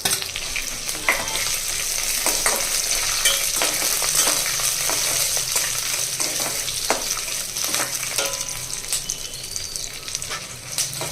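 Peanuts and broken dried red chillies sizzling steadily in a pan of hot oil, with a ladle stirring them and clicking against the pan every so often.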